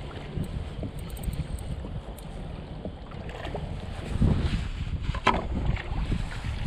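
Wind buffeting the microphone over water and hull noise around a fishing kayak, with a few sharp knocks between about four and five and a half seconds in.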